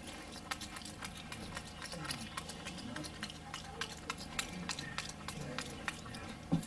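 Capuchin monkey chewing with its lips smacking: a run of quick, irregular wet clicks, with one sharper click near the end.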